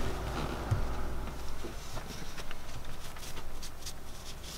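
Faint scattered clicks and light handling noises from hands working on the generator's fuel injection pump, over a steady low hum.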